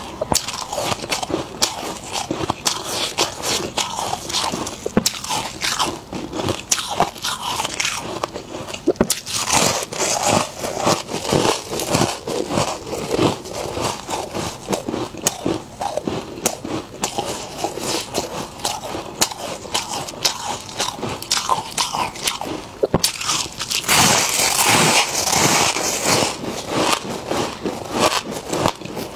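Freezer frost being bitten and chewed: dense, crackly crunching of packed ice, with a louder, hissier stretch near the end.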